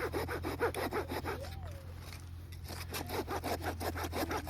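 Hand saw cutting wood with quick back-and-forth strokes, pausing briefly about two seconds in.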